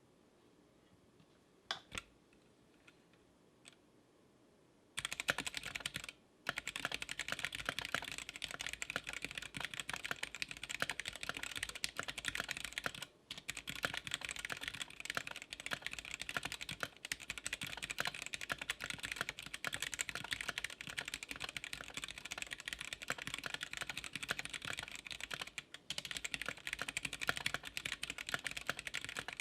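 Typing test on a 60% mechanical keyboard with Gateron Yellow linear switches: a couple of lone key presses, then, from about five seconds in, fast continuous typing, a dense clatter of keystrokes with a few brief pauses. The switches sound a little higher pitched than usual.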